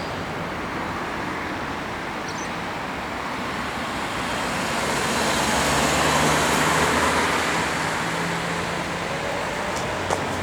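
Road traffic noise, with a vehicle passing that swells to its loudest about six seconds in, its low engine hum showing, then fades. A short sharp click near the end.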